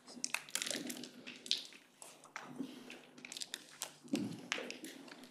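Scattered light taps, clicks and rustling of handling noise, with a brief low murmur about four seconds in.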